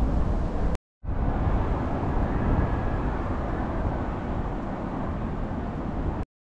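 Steady, fairly loud low rumble of outdoor background noise, dropping out to silence twice: briefly just before a second in and again just before the end.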